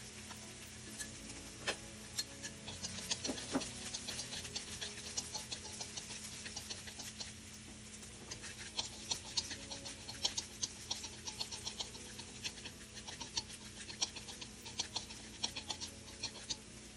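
Chopped fresh turmeric frying in oil in a nonstick pan: hot oil crackling and spitting in rapid, irregular pops, busiest in the second half, with the scrape of a utensil stirring through it.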